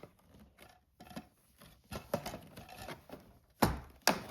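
Toy barn pieces clicking and knocking against each other as a side wall is worked into place, with a few light taps and then two sharp knocks near the end.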